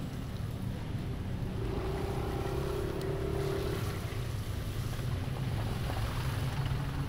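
Motor scooter ridden slowly through traffic on a wet road: wind rumbling on the action camera's microphone over the scooter's engine and tyre hiss. A steady hum rises over it for about two seconds in the middle.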